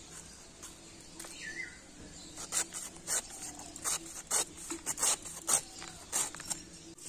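Young green jackfruit being sliced on a boti blade: a quick run of about a dozen short, crisp cuts, starting about two and a half seconds in.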